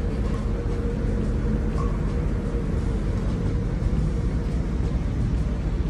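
Wind buffeting the phone's microphone on a ship's open top deck: a steady low rumble, with a faint steady hum underneath.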